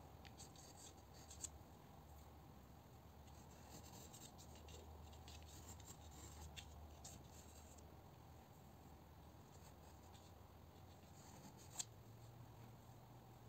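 Faint scratching of an HB graphite pencil drawing short strokes on textured watercolour paper. There are two small clicks, one about a second and a half in and one near the end.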